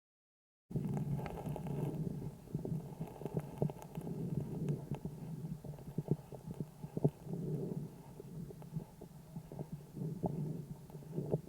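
A calf's lung sounds picked up through a homemade stethoscope microphone on the chest: low breath sounds swelling and fading with each breath, with scattered short clicks. The sound starts abruptly under a second in.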